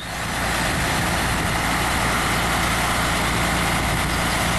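Boom truck's engine running steadily while its National Crane telescoping boom extends.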